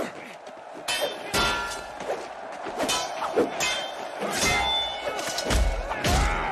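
Sword-fight sound effects from a film soundtrack: a series of heavy thuds and blows, some with a brief metallic ring, and deep low booms in the second half.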